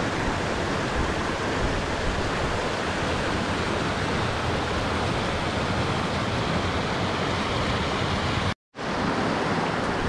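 Kurokuma Falls and the rocky stream below it: a steady rush of falling and tumbling water, cutting out to silence for a moment near the end.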